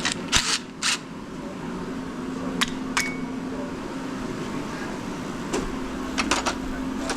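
Metal tools and parts clinking and tapping now and then as a dirt bike's engine is taken apart, one clink ringing briefly, over a steady low hum.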